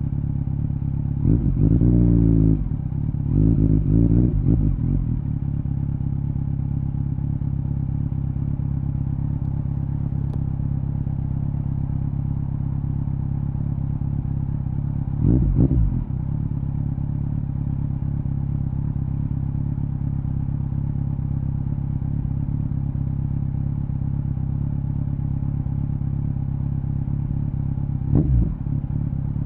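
Kawasaki Z900's inline-four running through a LeoVince LV10 aftermarket exhaust, a steady low drone. The engine note swells in short throttle blips: twice in the first five seconds, once around fifteen seconds, and once near the end.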